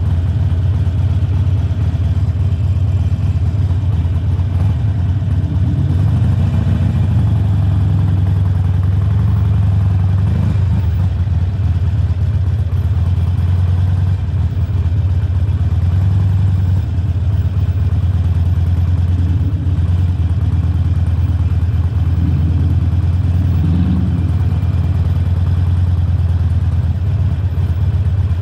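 2020 Harley-Davidson Forty-Eight's 1200 cc air-cooled V-twin, breathing through Khrome Werks slip-on mufflers, running at low, steady revs while riding, with a few brief rises in pitch.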